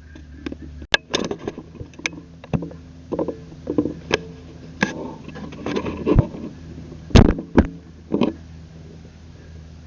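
Irregular knocks, clicks and rustles of handled gear, loudest about seven seconds in, over a steady low hum.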